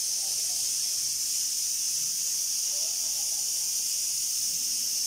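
Steady, high-pitched hiss of rushing air from the blowers of a screen-printing line's drying tunnel.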